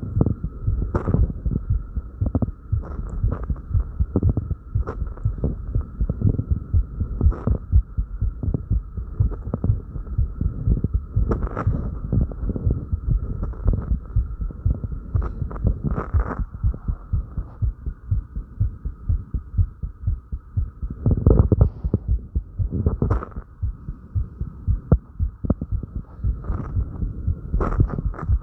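A fast human heartbeat, raised by light exercise, heard close to the chest as rapid low thumps over a steady hum. Occasional short noises from breathing and body movement rise above it.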